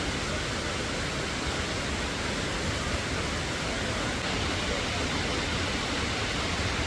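Steady rush of a waterfall close by: an even, unbroken noise.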